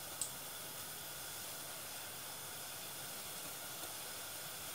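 Rolled yufka pastries frying in hot oil in a saucepan: a steady soft sizzle, with one light click about a quarter of a second in.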